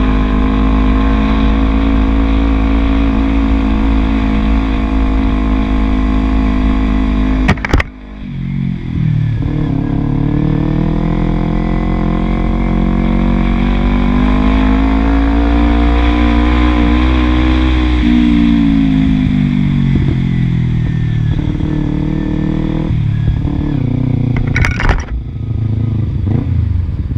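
Kawasaki Ninja 250R's parallel-twin engine running through a 30 cm WR Authentic carbon-fibre slip-on exhaust. It holds steady revs, gives a sharp crack about eight seconds in, and dips. The revs then rise slowly and fall back, with another crack near the end.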